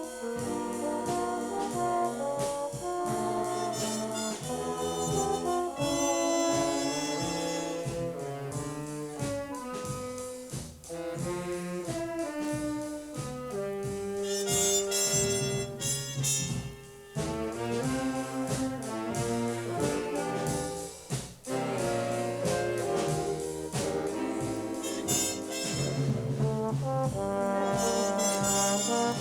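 Junior high school stage band playing big-band jazz, with full brass ensemble chords and trombones to the fore, briefly dropping back between phrases a few times.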